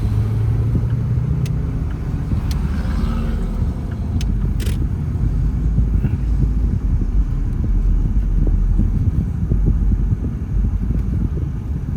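Steady low rumble of engine and road noise inside a moving vehicle's cabin, with a few short clicks in the first five seconds.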